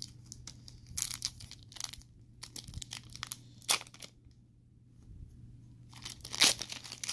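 Trading card pack wrapper being torn open and peeled apart by hand, crinkling and crackling in irregular bursts, loudest near the end.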